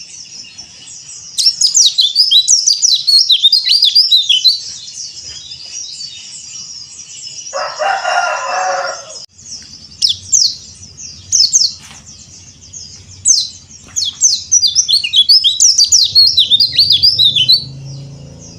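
Yellow-breasted Bali white-eye (pleci dakbal) singing rapid, high twittering phrases in three loud bursts with quieter twitter between them. About eight seconds in, a lower, coarser call lasts about a second and a half.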